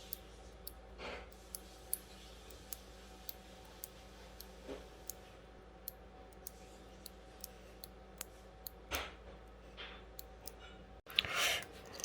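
Single mechanical keyboard keys pressed one at a time, each giving a sharp click at an uneven pace of about one or two a second, over a faint steady hum.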